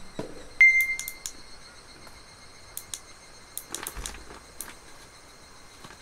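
Small hanging LED lantern being switched on by hand: sharp button clicks and a short high electronic beep about half a second in, then more scattered clicks. Faint steady insect song runs underneath.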